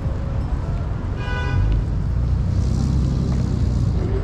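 Street ambience with a steady low rumble of traffic, swelling for a couple of seconds in the middle. A short high-pitched tone sounds about a second in.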